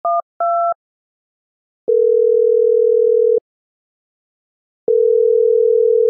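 Telephone keypad dialing, the last few two-note touch-tone beeps, followed by the ringing tone of the call going through: two long steady tones of about a second and a half each, with a pause of about the same length between them.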